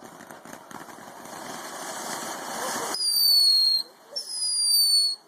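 Consumer fireworks: a hiss that grows louder for about three seconds and stops suddenly, then two shrill whistles, each just under a second and falling slightly in pitch.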